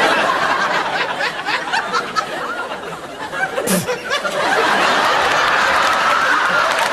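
Studio audience laughing hard, swelling into laughter mixed with applause about halfway through.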